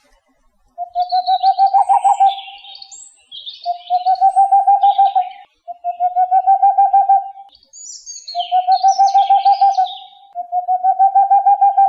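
Bird calls: a low, rapid trill repeated five times, each lasting about a second and a half, with higher chirps and twitters mixed in between and over them.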